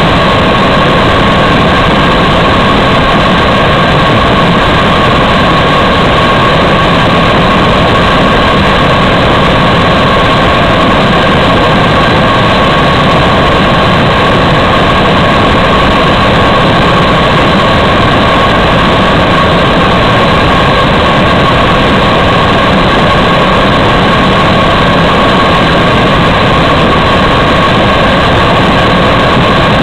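LandSpace rocket engine with a niobium alloy nozzle firing steadily on a test stand: a loud, unbroken rushing noise with a steady high tone running through it.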